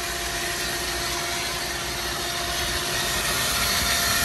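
Reverse-osmosis membrane cleaning machine's pump running steadily with a constant hum, circulating the stage-1 cleaning chemical through the membrane. It grows slightly louder near the end.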